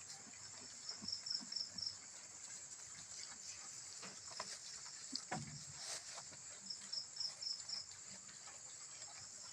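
Insects trilling steadily, with two short runs of five quick chirps. Scattered soft clicks and rustles come from sheep and goats feeding.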